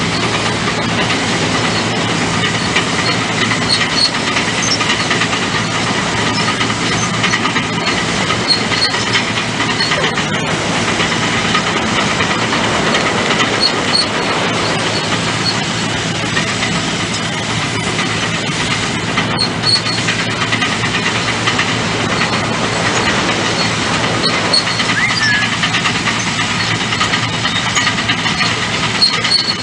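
Engine of heavy construction equipment running steadily.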